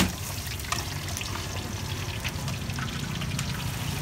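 Hot oil sizzling steadily in a wok as fish balls deep-fry, with a sharp clink of metal utensils at the start and a few lighter clicks after it.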